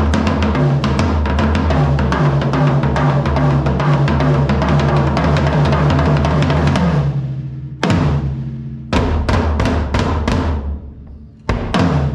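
DW Low Pro travel drum kit, short toms without resonant heads and a kick drum, played in a fast continuous roll of tom and kick strokes for about seven seconds. The roll dies away, and then come a few separate hits that ring out, with more strokes near the end. Heard through a camera's built-in microphone.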